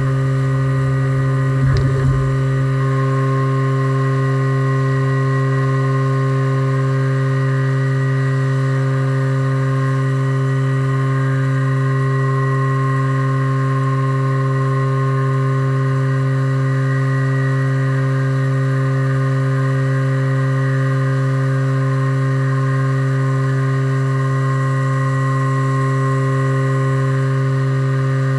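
Haas VF2 CNC vertical mill running its spindle at 8100 RPM: a steady machine hum with higher steady tones above it. A brief knock sounds about two seconds in.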